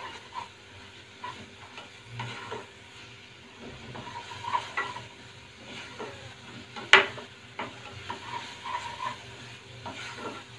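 Wooden spatula stirring and scraping thick onion-tomato masala around a nonstick pan as it fries in oil with its ground spices, with a faint sizzle throughout. A sharp knock of the spatula on the pan stands out about seven seconds in.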